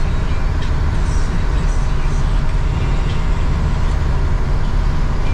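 Cab of a small Mercedes-Benz truck on the road: a steady, loud low drone of engine and road noise as it drives along.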